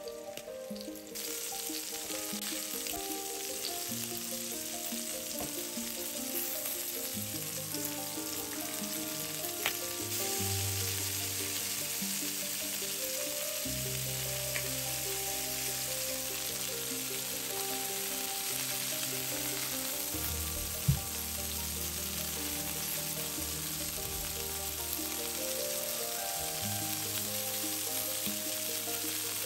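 Chicken breast strips sizzling steadily in butter and olive oil in a frying pan, with kitchen tongs clicking sharply against the pan twice as the pieces are turned and lifted out. Soft background music underneath.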